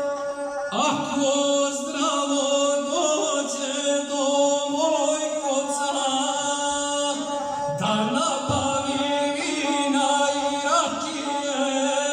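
A man chanting a sung poem, his voice bending and sliding in pitch over a steady held tone beneath it.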